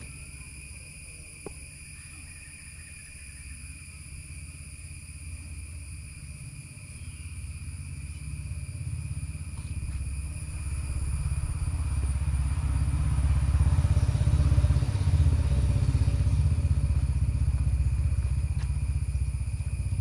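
A low rumble that builds over several seconds, is strongest past the middle and then eases a little, over a steady faint high whine.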